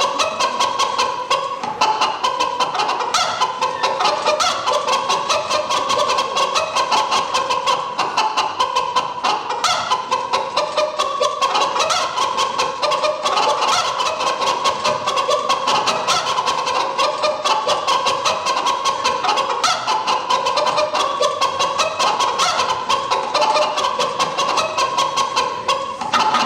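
Stage music with a fast, even pulse and a melody line that stays in the middle register, played at a steady level.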